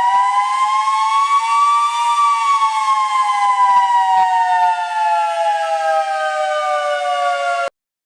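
Outdoor emergency warning siren wailing with two tones sounding together. The pitch rises to a peak about two seconds in, then falls slowly, and the sound cuts off suddenly near the end.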